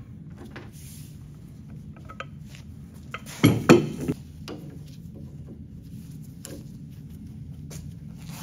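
Metal tools and parts clinking and clanking on a steel bench vise, with a short cluster of loud clanks a little before halfway, over a steady low hum.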